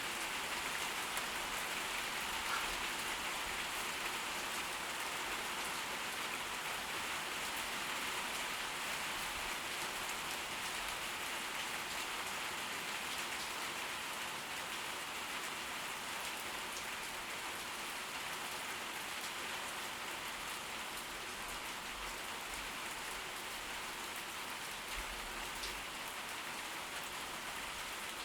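Steady rain from a tropical storm, falling evenly without letting up.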